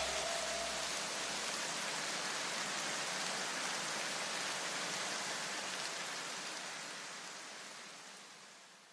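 A white-noise wash in an electronic dance track, steady and then fading slowly to silence near the end, with a few low bass thuds dying away in the first two seconds.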